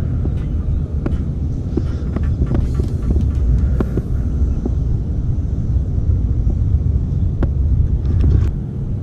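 Wind buffeting the camera's microphone: a steady, uneven low rumble, with a few light clicks from the spinning reel and rod being handled.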